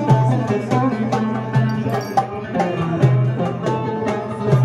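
Bağlamas (long-necked Turkish saz lutes) playing a folk tune, with quick plucked notes over lower sustained notes.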